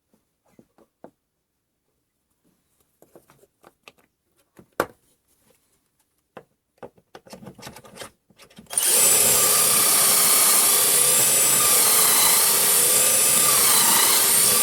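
A few light clicks and knocks of handling, then about nine seconds in a power drill starts and runs steadily for about six seconds, its pitch wavering slightly under load as it bores pocket holes into wood.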